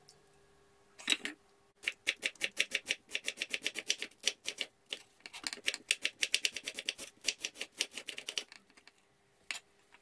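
Chef's knife chopping a red onion on a wooden cutting board: a knock about a second in, then quick, even strokes of the blade on the board, about five a second, stopping near the end.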